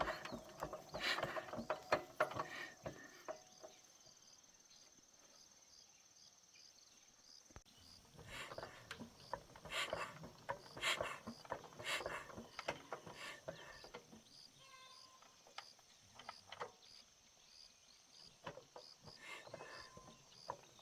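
Scattered clicks and clanks of hand-tool work on metal parts, busiest at the start and again from about eight seconds in, over a steady high insect-like whine.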